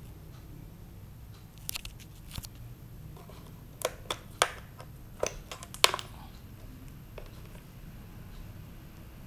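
A string of sharp clicks and taps from a hand handling a handheld digital multimeter and its test leads, starting about two seconds in and stopping about six seconds in.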